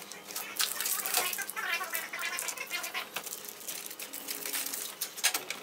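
Irregular scraping, rustling and small clicks of hands stripping and working an aluminum service entrance cable at the top of a metal electrical panel.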